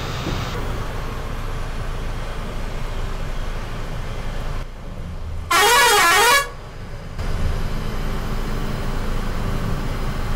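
Steady low rumble of the sleeper bus's engine and tyres heard from inside the cabin, cut by one loud vehicle horn blast of about a second, about halfway through, its pitch wavering up and down.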